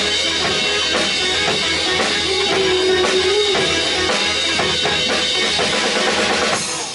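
Rock band playing: drum kit, bass, guitar and keyboard with a held melody line, ending on a last full hit near the end that rings out and fades.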